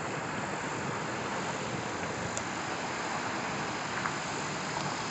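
Steady, even mechanical background noise, like a running vehicle, with a faint tick about four seconds in.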